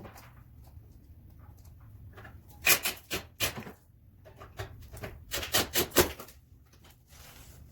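Two clusters of sharp knocks and clatter, one about three seconds in and another between five and six seconds in, from hand work on the truck, over a faint low hum.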